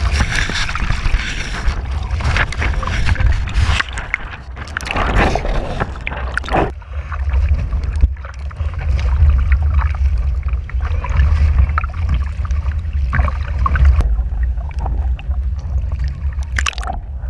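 River water sloshing and splashing against a GoPro mounted on a windsurf mast lying in the water, with wind buffeting the microphone in a deep, steady rumble and now and then a louder splash.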